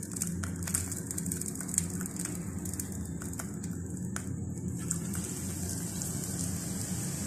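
Hot oil crackling and popping in a frying pan; about five seconds in, a besan-battered stuffed green chilli goes into the oil and the sound turns into a steady sizzle. A low steady hum runs underneath.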